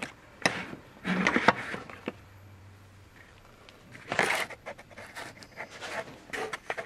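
Handling noise from a camera being picked up and repositioned: irregular knocks, scrapes and rubs with quiet gaps between them.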